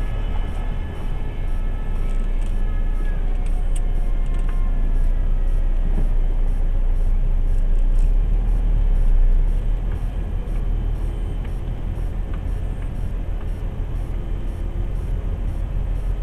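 MAN lorry's diesel engine running with a steady deep rumble in the cab as the truck rolls slowly over a rough road. There are a few faint squeaks and ticks in the first few seconds, and the rumble swells slightly before easing about nine seconds in.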